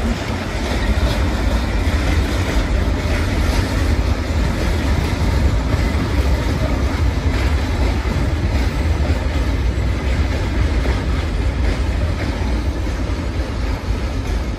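A freight train passing on steel wheels: a Renfe class 256 electric locomotive hauling flat wagons loaded with steel coils. It makes a steady, loud rumble with rolling wheel-on-rail noise.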